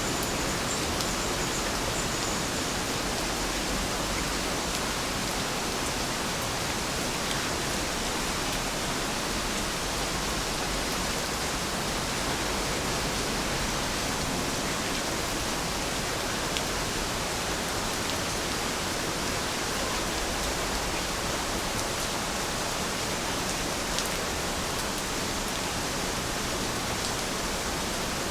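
Heavy rain falling steadily: an even, unbroken hiss with a few faint, sharper drop ticks.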